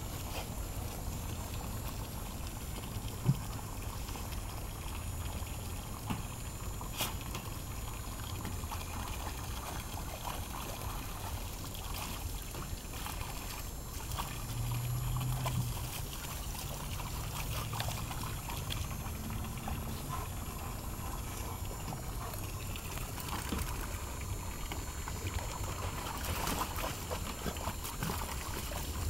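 Garden hose stream splashing steadily into a shallow plastic kiddie pool, with two dogs splashing as they step about in the water.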